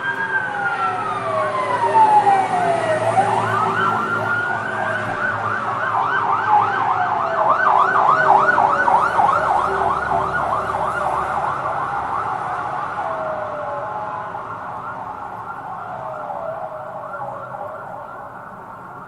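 Fire truck siren wailing, its pitch rising and falling slowly, then switching to a fast yelp of about three to four sweeps a second for several seconds before returning to the slow wail. It is loudest in the middle and fades toward the end, over a low vehicle rumble.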